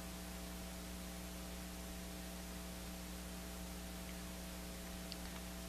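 Steady electrical mains hum with an even hiss underneath, unchanging throughout.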